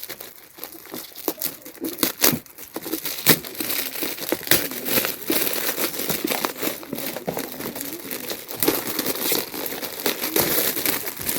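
Gift wrapping being torn open and crumpled by hand, a busy, irregular crinkling and crackling with sharp rips.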